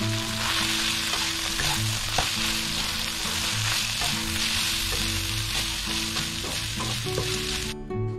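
Minced pork, chillies and holy basil sizzling in a hot wok while a spatula stirs and tosses them, with occasional clicks of the spatula against the pan. The sizzling stops abruptly near the end.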